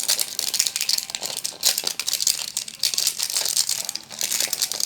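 Plastic wrapping of a surprise toy package crinkling and crackling as it is handled and opened, starting abruptly and going on with only a brief lull near the end.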